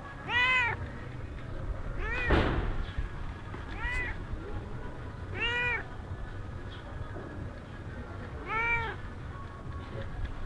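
White-and-tabby cat meowing five times, short meows that each rise then fall in pitch, one to three seconds apart. A brief thump about two seconds in, right after the second meow.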